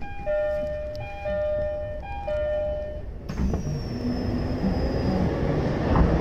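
Train door chime sounding three times, a high note then a longer low note, about a second apart. About three seconds in, a loud rushing noise begins with a faint falling whistle and a low hum from the train.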